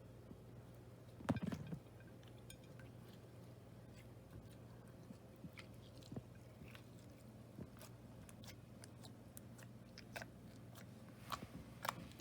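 Slime being squeezed and worked by hand, giving scattered soft clicks and crackling pops, with a louder squelch about a second in and a quick run of pops near the end.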